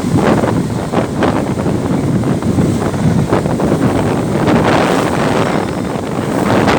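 Strong wind buffeting the microphone in loud, uneven gusts, a constant low rumble with bursts of louder rushing.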